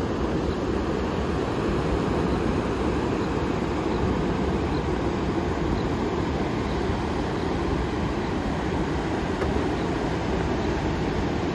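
Steady low rumbling noise of wind and surf on an open beach, with no breaks or distinct events.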